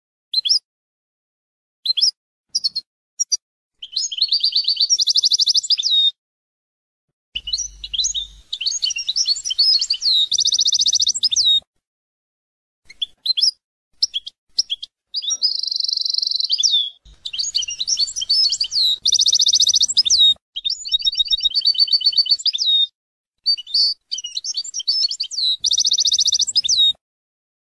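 European goldfinch singing: bouts of rapid twittering chirps and fast trills, broken by short silent gaps.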